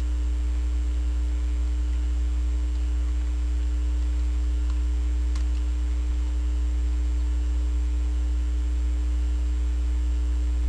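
Steady electrical mains hum with a steady higher tone above it, and a couple of faint clicks around the middle.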